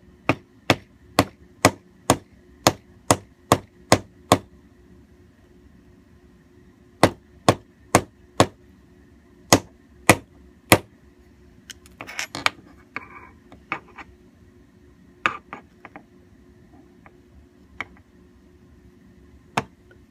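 Small hammer tapping a watch part held in pliers against a workbench. The metal strikes are sharp, about two a second, in runs of several with pauses between. There is a brief clatter about twelve seconds in, and only a few single taps after it.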